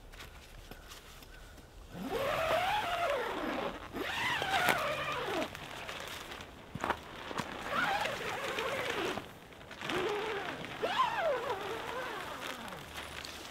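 Door zippers on a Lone Rider MotoTent being run open: four long zipping strokes, each rising and then falling in pitch.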